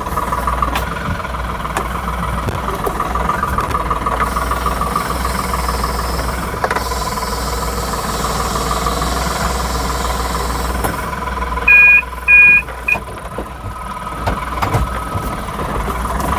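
Ashok Leyland Bada Dost i4 pickup's three-cylinder diesel engine running steadily with a low rumble as the truck is driven down a slope over rough, unpaved ground. About twelve seconds in, two short high-pitched beeps ring out, the loudest sounds here.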